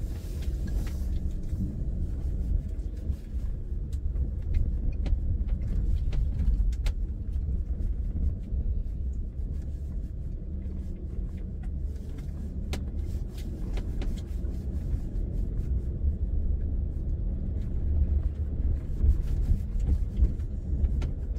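Subaru XV hybrid driving slowly up a gravel track, heard from inside the cabin: a steady low rumble of engine and tyres on gravel, with scattered clicks and knocks from stones.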